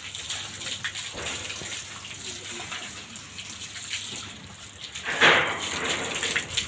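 Water from a garden hose splashing over a wet Belgian Malinois's coat and onto brick paving during a rinse, with a steady hiss and a louder splash about five seconds in.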